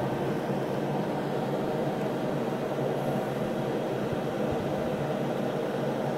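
Steady mechanical hum and hiss, like a fan or motor running, with no speech.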